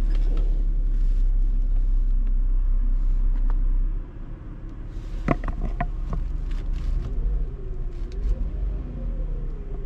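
Hyundai Azera 3.0 V6 idling with the A/C switched off, a heavy low rumble for the first four seconds, then two sharp clicks and a faint wavering whine. The whine is the noise being traced, first suspected to be the A/C compressor or power steering and then put down to the oil pump.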